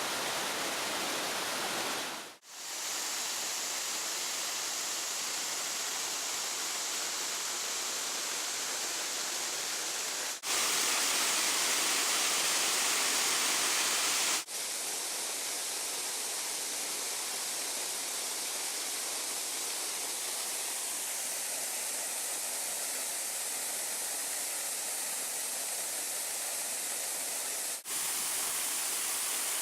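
Waterfall pouring: steady rushing water noise that changes abruptly in loudness and brightness at a few hard cuts. There is a brief dip about two seconds in, a louder, hissier stretch from about ten to fourteen seconds, and another step up near the end.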